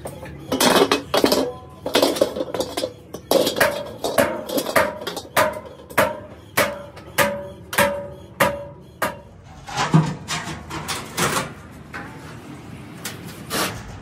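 Repeated metal strikes on steel dished tank heads, roughly one or two a second, each leaving a short ring; the strikes come closer together about ten seconds in.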